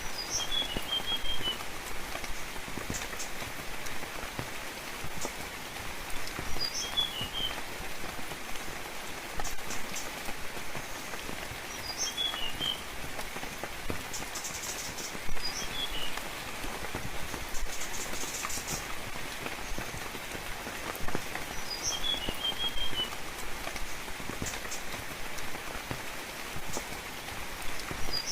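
Steady rain falling, with a bird repeating the same short call about every six seconds: a high note followed by a quick run of lower chirps.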